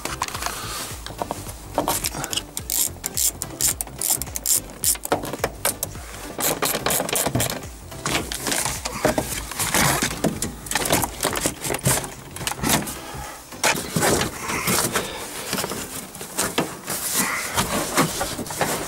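Plastic interior trim and headliner clips of a Land Rover Freelander 2 being pried and pulled free: a long run of irregular clicks, cracks and rattles.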